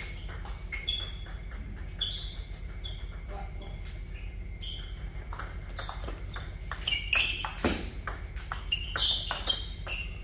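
Table tennis ball clicking off paddles and the table: a few bounces before the serve, then a quick rally that is busiest and loudest in the last few seconds.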